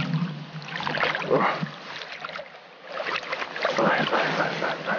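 Water splashing irregularly as a hooked mirror carp thrashes at the surface near the bank while it is played in.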